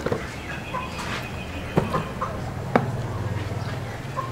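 Meat cleaver chopping through a duck onto a wooden chopping block: three sharp chops, at the start, near the middle and a second later, with lighter knocks between. A steady low hum joins in the background in the second half.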